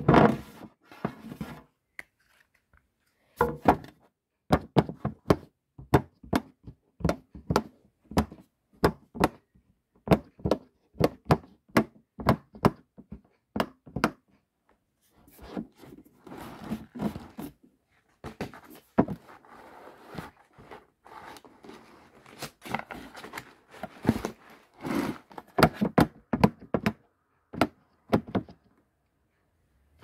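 Fidget toys being handled: a run of quick, irregular clicks and taps, with softer rustling between them in the second half.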